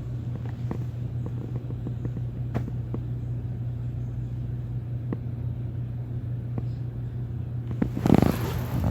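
Steady low hum from the mosque's microphone and sound system, with faint scattered clicks, during a pause in the recitation. Near the end comes a short, loud intake of breath into the microphone.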